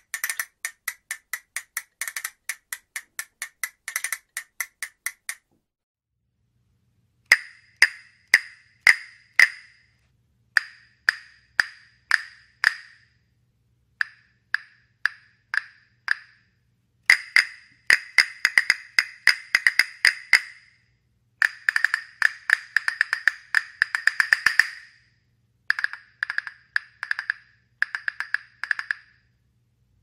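Wooden castanets clacking: a steady fast run of clicks, a pause of about two seconds, then short rhythmic phrases of strikes broken by quick rattling rolls.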